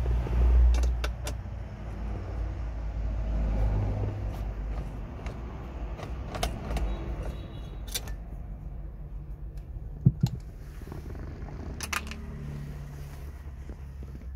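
Scattered metallic clicks and taps of a nut driver against the dashboard bolts and trim, over a low rumble. The sharpest knock comes about ten seconds in.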